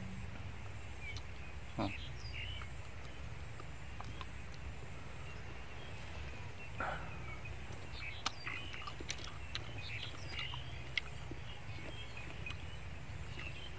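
Steamed snail shells clicking and ticking as they are handled and picked at, with a couple of short eating sounds about 2 and 7 seconds in. Under it runs a steady low outdoor hum, and birds chirp faintly.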